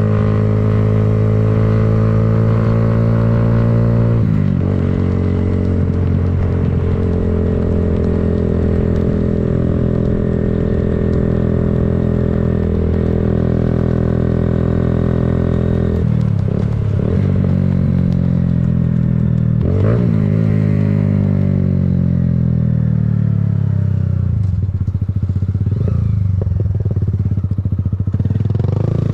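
Kawasaki Z125 mini bike's 125 cc air-cooled single-cylinder engine running under way at a steady cruising pitch. The revs drop and pick back up a few times, then fall away over several seconds as the bike slows, rising again right at the end.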